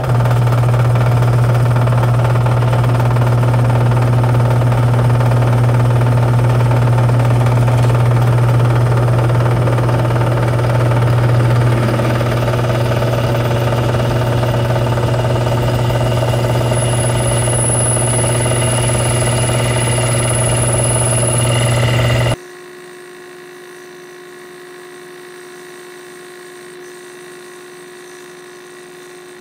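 Drill press motor running with a strong steady hum while the bit drills into aluminium bar stock. About 22 seconds in the sound cuts abruptly to a much quieter steady hum.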